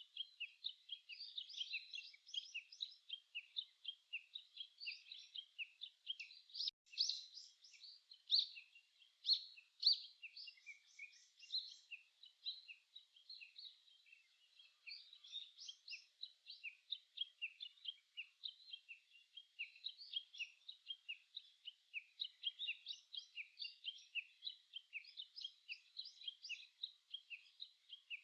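Many small songbirds chirping and singing together in a dense, continuous chorus of short, high calls. The calls are louder for a few seconds from about seven seconds in.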